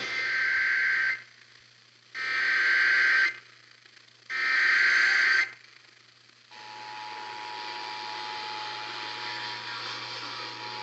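Emergency Alert System SAME header: three bursts of warbling data tones, each about a second long with a second's gap between them. About six and a half seconds in, the steady two-tone attention signal begins and holds. The alert is heard over broadcast radio and opens a tornado warning.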